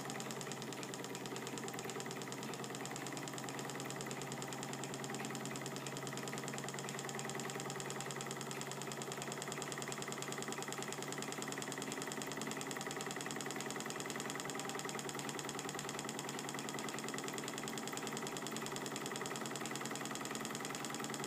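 Small model Stirling engine, machined from bar stock and heated by a methylated-spirit burner, running steadily: an even, fast mechanical whir with fine rapid ticking from its moving parts.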